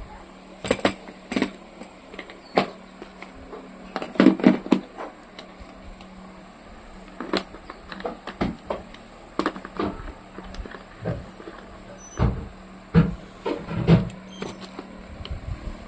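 Irregular knocks and clicks of objects being handled and set down, with a steady low hum underneath.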